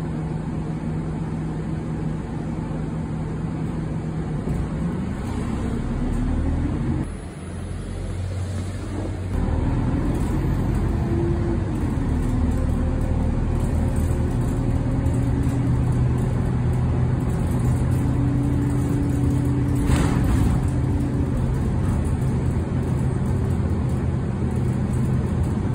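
Bus engine running with road noise, heard from inside the cabin. The engine note climbs about five seconds in and drops away around seven seconds, then picks up and runs steadily. A single knock comes about twenty seconds in.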